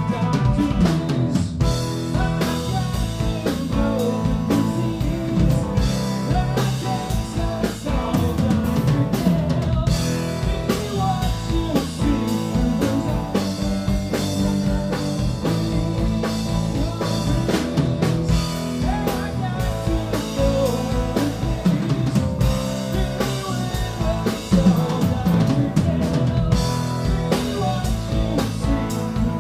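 Live rock band playing: electric guitars, electric bass and a drum kit keeping a steady beat, with a man singing.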